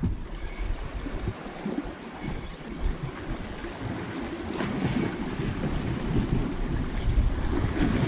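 Wind buffeting the microphone in uneven gusts over the wash of sea surf.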